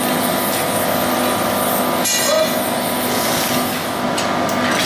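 Large open forge hearth burning hard with tall flames, heating the steel blank for flanging a steam-locomotive firebox tube plate: a steady rushing noise with a steady hum under it.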